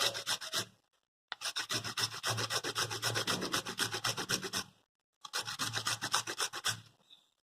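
A piece of fresh ginger being grated on a grater: quick, even strokes, several a second, in three runs with two short pauses between them.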